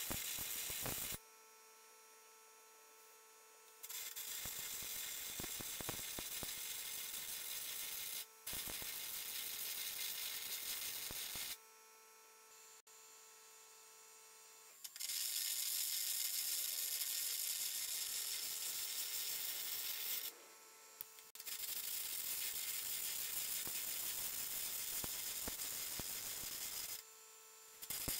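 Carbon arc air gouging with a 6.5 mm carbon rod: the arc and its compressed-air jet make a steady crackling hiss as the old welds holding the wheel centre in its rim are blown out. The hiss comes in several runs of a few seconds each, and it stops briefly about a second in, around the middle, and twice near the end before starting again.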